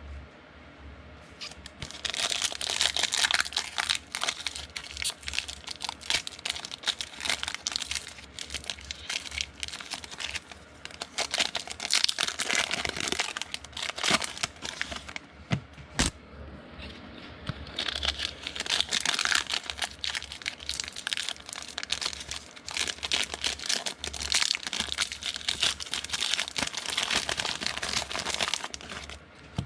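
Foil trading-card pack wrappers being torn open and crinkled, in two long stretches with a single sharp snap between them about halfway through.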